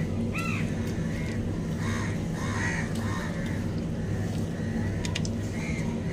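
Crows cawing repeatedly, a string of short calls about one every half-second to second, over a steady low hum.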